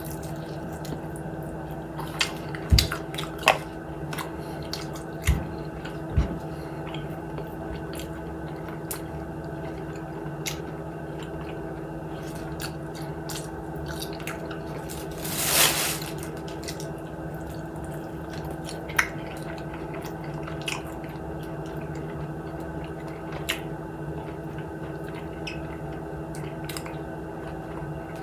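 Close-up mouth sounds of someone eating crispy fried chicken wings: scattered wet clicks and smacks of chewing, with one longer, louder noise about halfway through, over a steady low hum.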